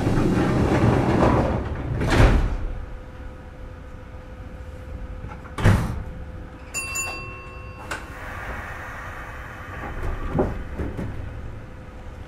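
Sliding doors of a Kintetsu 2430-series electric train closing, heard from inside the car: a loud rush of noise, then a heavy thud about two seconds in and a sharper knock a few seconds later. After that there is a quieter, steady noise.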